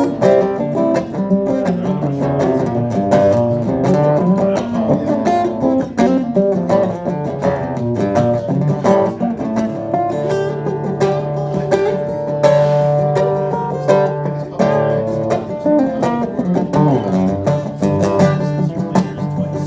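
Acoustic guitar played live in an instrumental break between verses of a blues song, a mix of picked notes and strummed chords.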